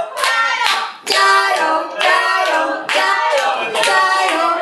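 A group of people clapping and cheering with loud, high-pitched shouts, urging someone on.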